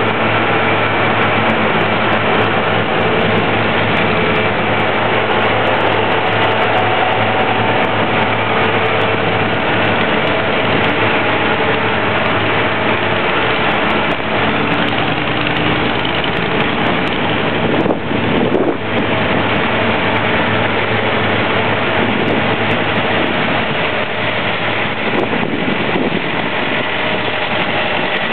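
Engine of a Bidwell concrete paving machine running steadily: a constant, loud machine drone with a steady hum.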